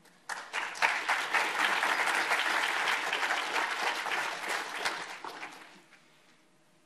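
Audience applauding, starting just after the start and fading out about six seconds in.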